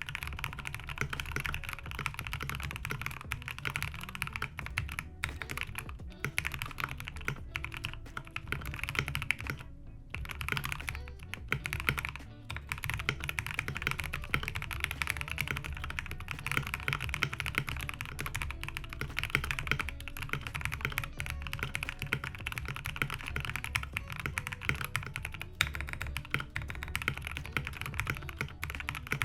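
Rapid, continuous typing on a Space65 Cybervoyager mechanical keyboard fitted with Akko double-shot Cherry-profile keycaps, with a short pause about ten seconds in. Background music plays underneath.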